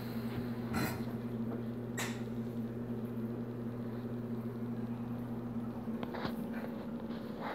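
Steady low electrical hum of a reef aquarium's running pumps, with a few brief clicks.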